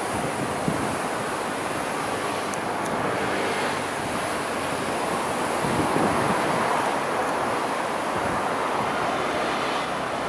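Sea surf breaking and wind on the microphone, steady throughout, with an approaching Class S11 diesel multiple unit train running faintly underneath.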